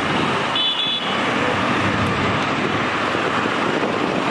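Steady road traffic noise from congested, slow-moving cars, minibuses and buses, with a brief high-pitched tone about half a second in.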